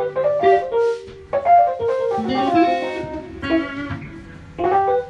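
A guitar playing plucked chords and short runs of notes, each ringing out and fading, with a short lull about four seconds in.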